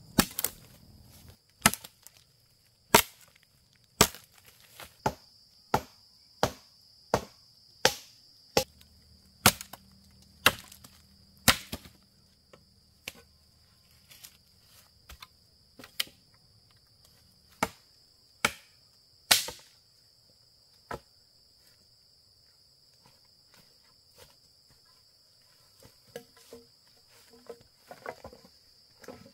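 Wood being chopped by hand: about twenty sharp strokes, roughly one a second, which stop about two-thirds of the way in and give way to faint rustling. A steady high insect trill runs underneath.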